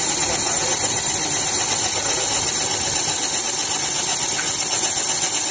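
Vertical cylinder boring machine running as its boring bar cuts inside an engine cylinder: a steady, unbroken machine noise with a strong high hiss.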